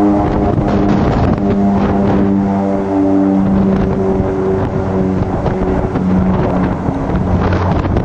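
Two IA-58 Pucará twin-turboprop attack aircraft flying in formation, lifting off and climbing away low: a steady engine and propeller drone with several held tones that shift slightly in pitch.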